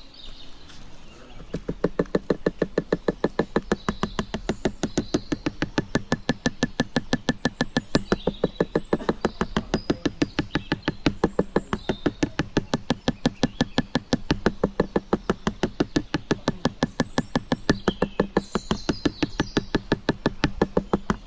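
A toddy tapper beats a coconut palm's flower stalk with a wooden mallet, steady rhythmic knocks at about four to five a second that start about a second and a half in. The beating stimulates the stalk to give more sap (toddy).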